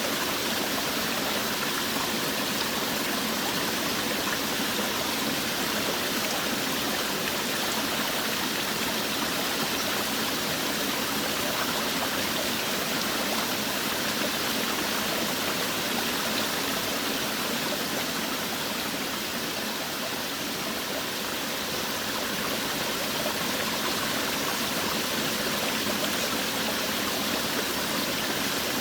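Forest waterfall: water falling and running in a steady, even rush.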